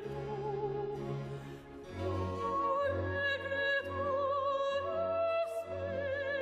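Slow background music: long held notes with vibrato over a low bass line, growing fuller about two seconds in.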